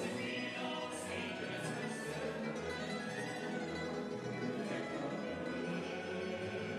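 Live Serbian traditional folk music: a string ensemble of plucked instruments and double bass playing, with a man singing.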